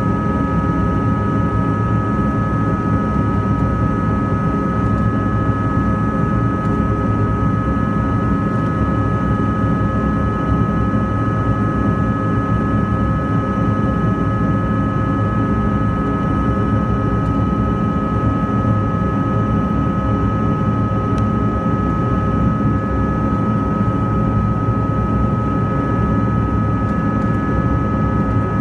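Cabin noise inside a CRJ200 regional jet climbing after takeoff: a steady roar of its rear-mounted General Electric CF34 turbofans and the airflow, with a steady high whine on top.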